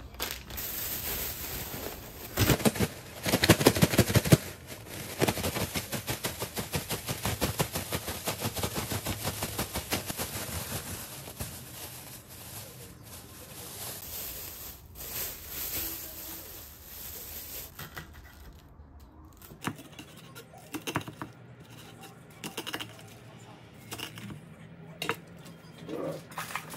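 Clear plastic bag holding cut eggplant pieces and starch, crinkling loudly as it is gathered closed, then shaken in a fast, even rhythm for several seconds to coat the eggplant. Later come a few scattered light knocks.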